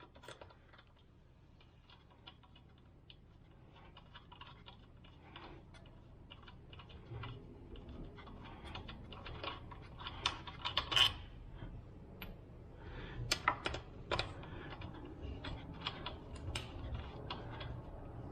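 Irregular small clicks and metallic taps of hand tools working on a motorcycle's front-wheel through-axle and its fittings, with a few louder knocks about two thirds of the way through.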